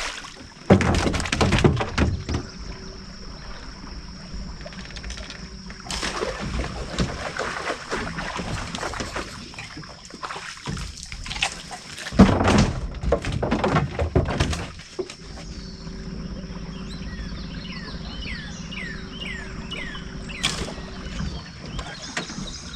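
Arrow-shot buffalo fish thrashing at the water's surface, splashing and sloshing in three bouts as it is hauled toward the boat, over a steady motor hum. A bird chirps repeatedly near the end.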